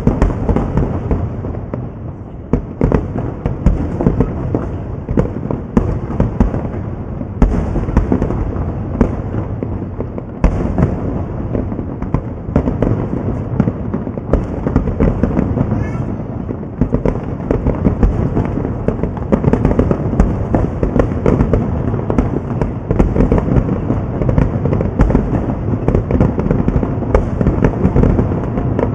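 Fireworks display: a dense, continuous barrage of booming shell bursts and crackling, many reports a second.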